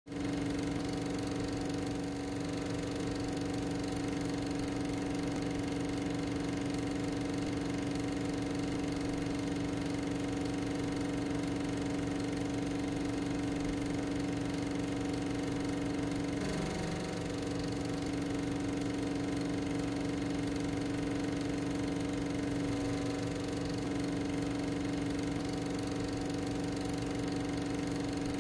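A steady mechanical hum holding one pitch with a few overtones, briefly dipping and wavering about sixteen seconds in.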